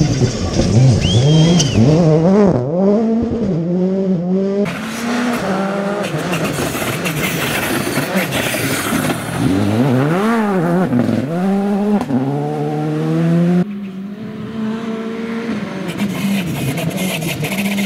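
Rally cars' turbocharged four-cylinder engines revving hard on a gravel stage, the pitch climbing and dropping again and again through gear changes and lifts off the throttle. Three cars pass in turn, with sudden changes from one to the next about 5 and 14 seconds in.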